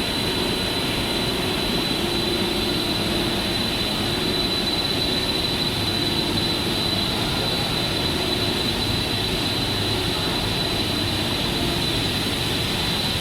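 Cable jacket extrusion line running in a factory: a steady machinery hum with a constant high-pitched whine.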